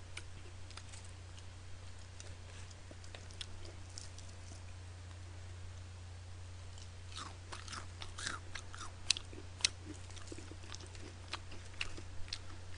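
Close-miked chewing and crunching of fried chicken: faint at first, then a run of crisp crunches and mouth clicks from about seven seconds in, with two sharper snaps a little after. A steady low hum runs underneath.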